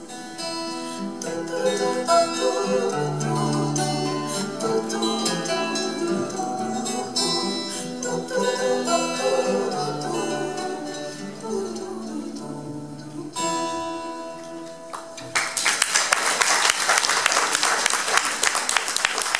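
Two acoustic guitars play the instrumental ending of a song in plucked notes, closing on a held chord. About fifteen seconds in, the audience breaks into applause, louder than the guitars, which runs on to the end.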